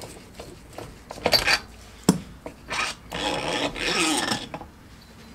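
Silent-block extractor being tightened to press a rubber bushing out of an aluminium suspension wishbone: metal rasping and creaking under heavy load, with a sharp crack about two seconds in.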